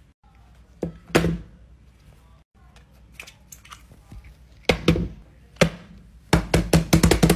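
Silicone pop-it phone case being handled: a few separate thunks and taps as the phone is worked in and out of it, then a quick run of sharp pops near the end as the bubbles are pressed.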